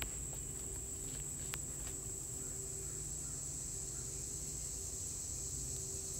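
Steady background noise: a thin high-pitched whine and a low hum, with a couple of faint ticks.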